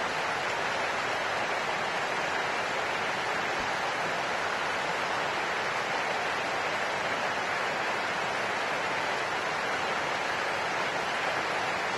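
Steady rushing of fast-flowing river water, an even, unbroken hiss.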